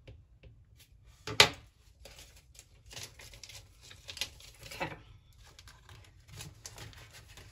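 One sharp click about a second and a half in as a stylus is set down, then paper banknotes rustling and crinkling as they are handled over a clear plastic binder pouch.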